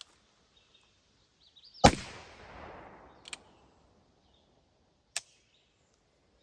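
A single shot from a Pietta Remington New Model Army black-powder cap-and-ball revolver firing a conical bullet, with its report echoing away over about a second and a half. Two short sharp clicks follow.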